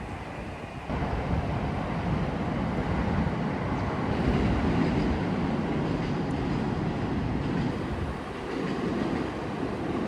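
Steady noise of a moving vehicle, stepping up in level about a second in.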